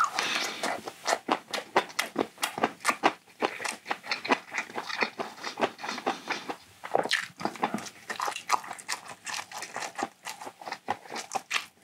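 Close-miked chewing of a mouthful of gimbap, with many quick, irregular wet mouth clicks and smacks.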